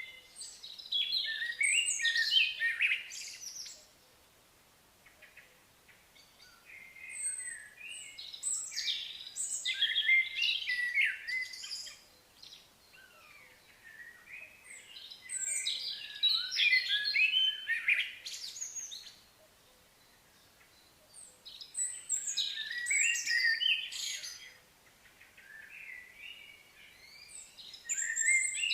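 A songbird singing: phrases of rapid, varied high chirps, each a few seconds long, repeated about every six seconds with short pauses between.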